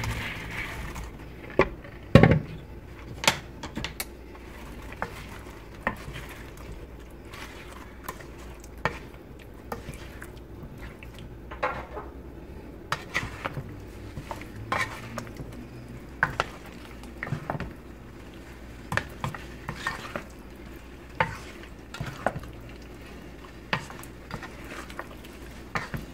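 Meatballs tipped into a nonstick pan of thick white sauce, with a loud knock about two seconds in, then a wooden spoon stirring them through the sauce, knocking and scraping against the pan at irregular intervals.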